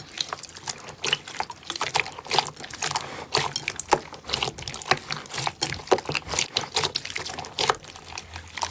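Slime being squeezed and worked by hand: a dense, irregular run of wet crackles and pops that cuts off suddenly at the end.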